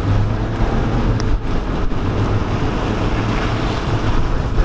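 Wind buffeting the camera microphone at an open car window, a dense, steady low rumble.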